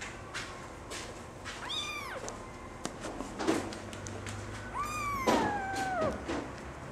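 Singapura kitten mewing twice: a short rising-and-falling mew about two seconds in, then a longer mew about five seconds in that slides down in pitch.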